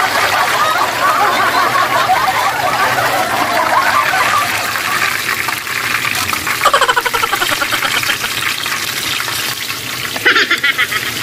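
Salmon steaks sizzling as they fry in hot oil in a pan, a dense crackle that thins out about halfway through. A couple of short squeaky sounds come about 7 and 10 seconds in.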